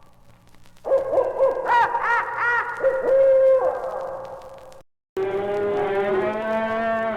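Owl hooting, with quavering, wavering calls, starting about a second in and ending near five seconds. After a brief silent gap, a cow lowing in one long call.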